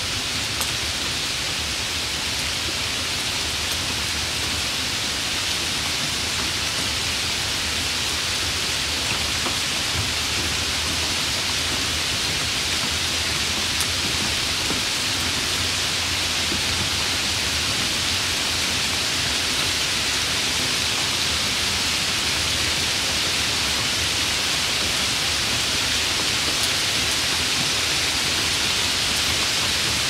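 Steady, even hiss of rushing water from a rain-swollen stream pouring over a weir.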